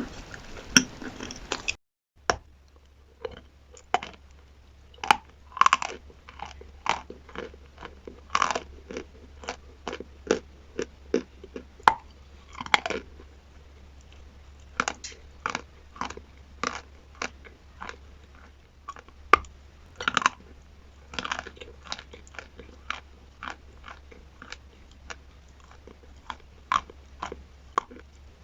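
Close-miked biting and chewing of chalk with chalk paste: sharp, irregular crunching cracks, roughly one to three a second, with a denser stretch of crunching in the first two seconds. A faint low hum lies underneath.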